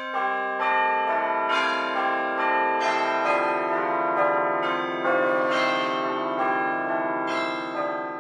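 Background music of bell-like chimes: several ringing notes overlapping and sustained, with a new note struck every second or so.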